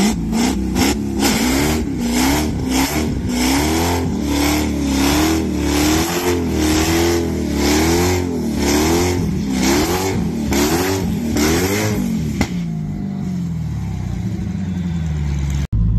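Dodge Challenger Hellcat's supercharged V8 doing a burnout, its revs rising and falling over and over about once a second as the rear tyres spin. About twelve seconds in, the revs drop away and the engine settles to a lower, steadier note. This is a test burnout after the inlet MAP sensor was cleaned and spaced off the intake.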